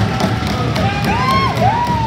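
Goal-celebration music with a steady beat playing through the rink, mixed with crowd cheering and a couple of drawn-out whoops about a second in.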